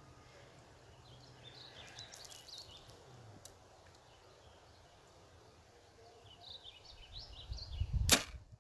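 Faint birds chirping over the outdoor background, then just after eight seconds a single sharp, loud snap of a compound bow being shot.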